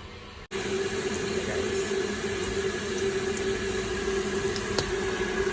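Onion and garlic sizzling in hot oil in a wok: a steady hiss that starts abruptly at a cut about half a second in, over a steady low hum.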